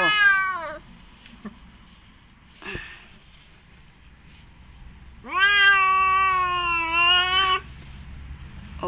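A mother cat in labour yowling: the end of a call falling in pitch at the start, then one long drawn-out yowl lasting over two seconds about five seconds in, as she strains to push out the next kitten.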